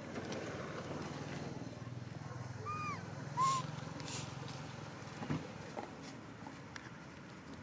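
Baby macaque picking and tearing at a split green coconut husk: scratchy rustles and clicks of the dry fibres, the loudest about halfway through. Two short rising-and-falling chirps come near the middle, over a low steady hum that fades out about five seconds in.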